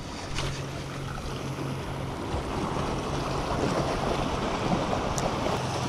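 Waves washing against a rock jetty, with wind on the microphone and a steady low hum underneath.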